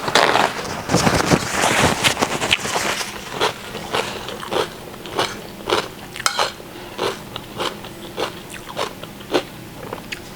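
Close-miked chewing of a mouthful of stir-fried mushrooms with rice: a busier stretch of bites and chewing for the first few seconds, then a steady rhythm of about two chews a second.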